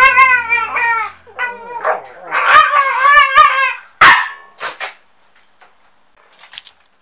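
Kai Ken dog vocalising in a run of high, wavering whining howls, its affectionate 'talking', for about three and a half seconds, then two short sharp sounds about a second apart.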